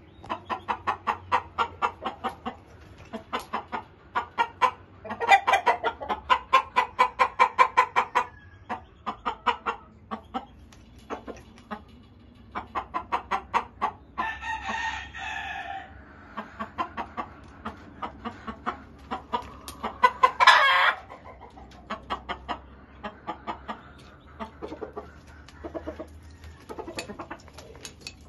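Gamefowl chickens clucking in repeated quick runs of short clucks, with a rooster crow about halfway through and a brief loud call a little later.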